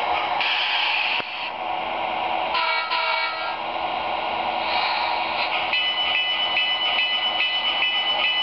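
Factory MRC sound decoders in two HO-scale Athearn Genesis F3 A-unit model locomotives playing recorded diesel engine sound as the units move off. A horn blast comes near the start and another around the middle, and from about six seconds in a bell rings steadily, roughly three strokes a second.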